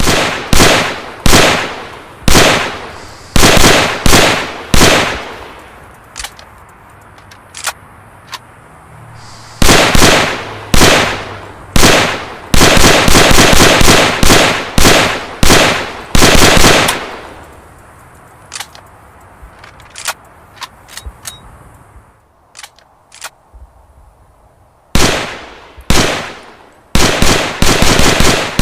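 M1 carbine (.30 Carbine) firing: strings of sharp shots, some spaced about a second apart and some in quick runs of several a second, broken by pauses of a few seconds that hold only a few faint clicks.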